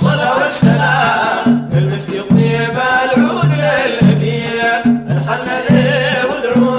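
Sudanese madeeh (Sufi praise song): male voices singing long, wavering melodic lines over a steady beat of hand drums.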